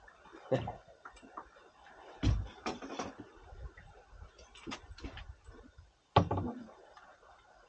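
Scattered knocks and clicks of a hooked fish and tackle being handled aboard a small boat while the fish is unhooked by hand, with two heavier thumps, about two seconds in and about six seconds in.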